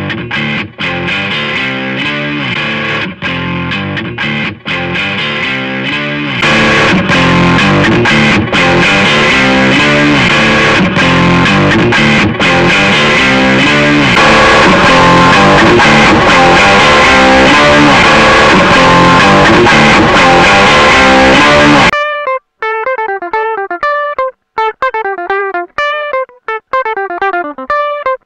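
Electric guitar played through a Joyo JF-13 AC Tone, a Vox AC30-style overdrive pedal. Driven chords and riffs become louder and brighter about six seconds in, then at about 22 seconds the playing cuts to sparse single picked notes with short gaps between them.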